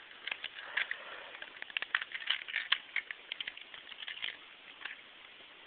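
Hard plastic parts of a Transformers Ratchet Voyager-class action figure clicking and rattling as they are handled and pressed onto pegs during transformation, with many irregular small clicks.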